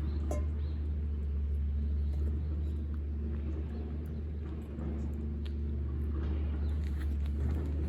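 Steady low rumble with a few faint light ticks over it.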